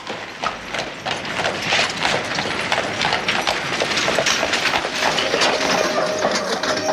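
Horse-drawn wagon on the move: a dense, continuous clatter of hooves and wooden wheels.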